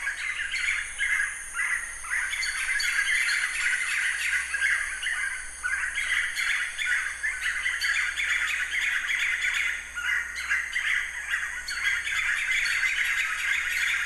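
White-fronted nunbird calling: a continuous run of rapid, overlapping calls.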